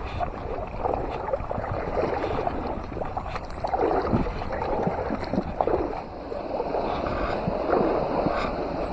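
River water flowing and gurgling: a steady rush with irregular bubbling swirls.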